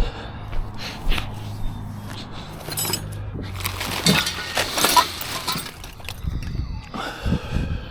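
Metal tools and parts clinking and rattling as they are handled, with a denser stretch of clattering about four to five seconds in.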